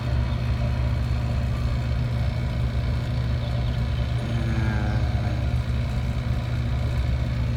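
Rooftop air-conditioning equipment running: a steady, loud low hum and drone of compressor and fans, with no change in speed.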